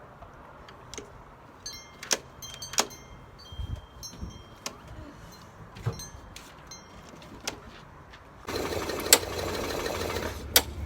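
Small gas engine of a brand-new Hyper Tough walk-behind lawn mower starting for the first time after priming. Scattered clicks and knocks come first, then about eight and a half seconds in the engine suddenly catches and runs steadily.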